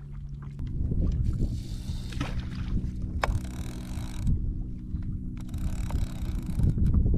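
Wind rumbling on the microphone aboard a kayak on open water, with water washing against the hull in a few splashy surges about a second long. A steady low hum runs underneath.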